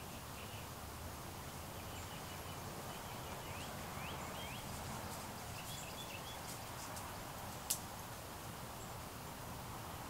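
Outdoor ambience dominated by a steady hiss from the camera's automatic gain control, with faint bird chirps in the first half and a single sharp click about three-quarters of the way through.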